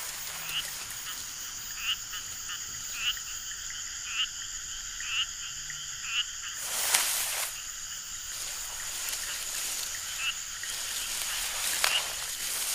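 Frogs calling in short, repeated notes about once a second over a steady high drone, with a brief rushing noise about seven seconds in.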